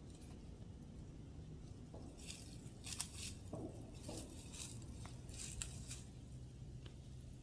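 Dry fallen leaves crunching and rustling in quick, irregular bursts under a black bear's feet as it walks and roots through the leaf litter, starting about two seconds in, with one sharper snap about three seconds in.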